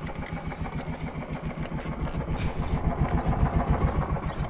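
Small boat engine of a motorized outrigger banca running steadily, with a rapid, even putter.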